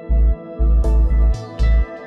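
Background electronic music with a deep pulsing bass and sustained keyboard tones; a bright, swishing high layer comes in just under a second in.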